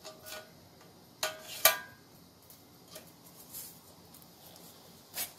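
Clicks and knocks of a hard drive tray being worked into an external hard drive enclosure's case. A pair of sharp clicks with a short ring comes about a second and a half in, with light ticks after them and a few more clicks near the end.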